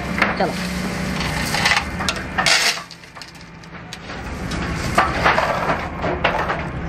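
Steel chain links clinking and rattling against each other and the perforated metal drum as the chain is handled, over a steady low hum. The clatter drops away briefly near the middle.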